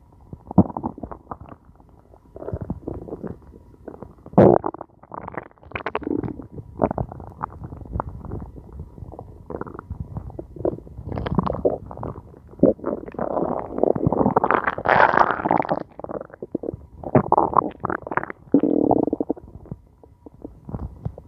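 A hungry person's empty stomach growling and gurgling in irregular short bursts, with one longer, louder rumble a little past the middle.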